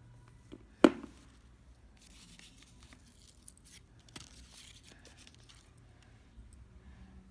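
A sharp knock about a second in, then short splashy rustles as a slip-bobber float with its split-shot sinker and hook drops into a shallow tub of water.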